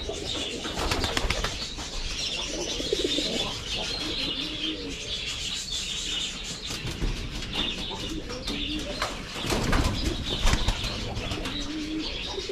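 A flock of pigeons cooing in short low phrases, with wing flaps and clatter among them, over a steady high chatter of budgerigars.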